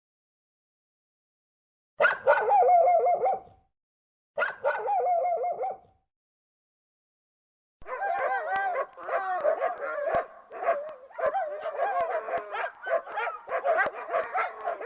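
Dogs whining and howling. Two drawn-out, wavering high cries come about two and four seconds in, then from about eight seconds a busy, continuous run of short yelps and whines.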